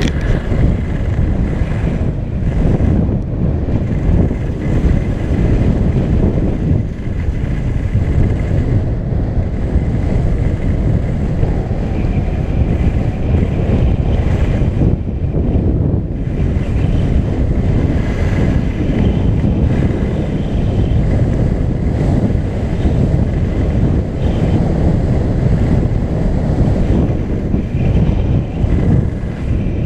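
Heavy wind buffeting a GoPro action camera's microphone while moving fast downhill on snow, mixed with the hiss and scrape of sliding over the snow.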